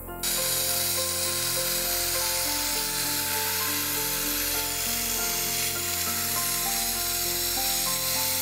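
Sandblasting nozzle giving a steady, loud hiss as it blasts rust off small metal model-car body parts. The hiss starts abruptly a moment in.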